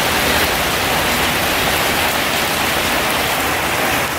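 Steady rain falling, a dense, even hiss of drops that holds unchanged.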